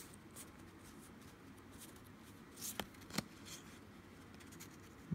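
Pokémon trading cards sliding and rustling against each other as they are moved through a hand, faint, with a couple of sharp card snaps about three seconds in.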